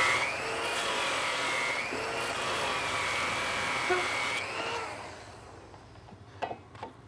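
Handheld power grinder working metal, its whine dipping and rising as it bears on and eases off the piece. It stops about four and a half seconds in. Two short knocks follow near the end.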